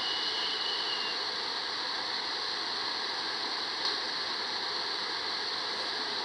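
Steady loud hiss of heavily amplified recording noise, with no growl standing out.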